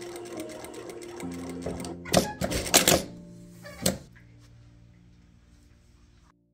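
Sewing machine stitching through fabric with a fast, even clatter, basting the skirt's front pieces together. It stops about two seconds in, followed by a few loud handling noises as the fabric is pulled out and a single click near four seconds.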